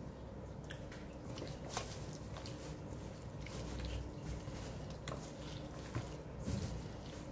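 Gloved hands squishing and turning marinated chicken pieces in a stainless steel bowl: faint wet squelches with scattered small clicks.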